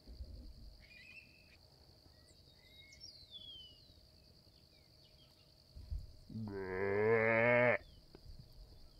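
One long, low, drawn-out animal call, about a second and a half, growing louder and then stopping abruptly; a few faint bird chirps come earlier.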